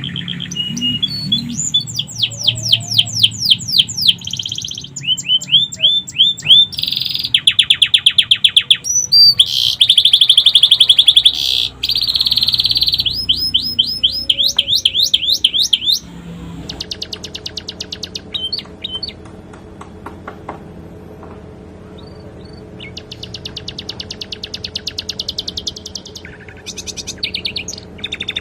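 Domestic canary singing long, rapid trills of repeated sweeping notes, a song filled with phrases learned from the sikatan londo flycatcher. About sixteen seconds in the song turns quieter, with a faint steady hum beneath it.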